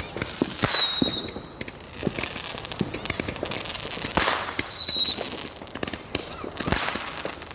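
Fireworks going off: scattered pops and crackling, with two high whistles that fall slightly in pitch, each under a second long and about four seconds apart.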